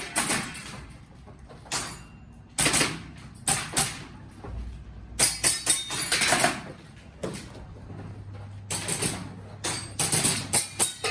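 Airsoft pistol firing in quick strings of a few shots, with pauses of a second or two between the strings.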